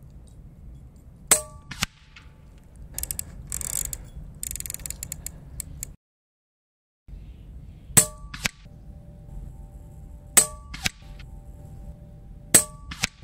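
Four shots from a Daystate Pulsar PCP air rifle set on mid power. Each is a sharp crack, and the first three are followed about half a second later by a fainter second click. Some scattered clicking comes between the first and second shots, and a second-long dead gap in the sound falls just before the second shot.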